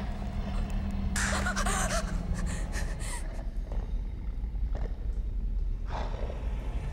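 A person gasps with a shaky, wavering breath about a second in, over a low steady hum; a few fainter short noises follow.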